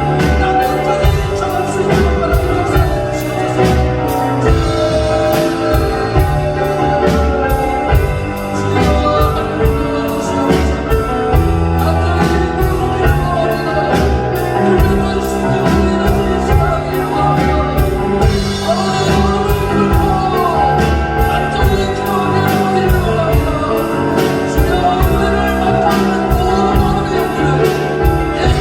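Contemporary worship song played by a band: singing over a steady drum-kit beat with accompanying instruments.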